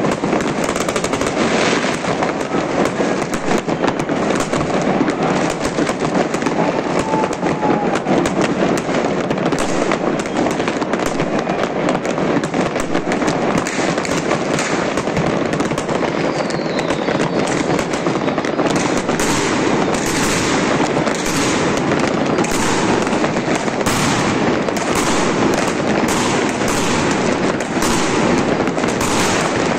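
Many fireworks and firecrackers going off at once in a dense, unbroken crackle, with sharper single bangs standing out more often in the second half.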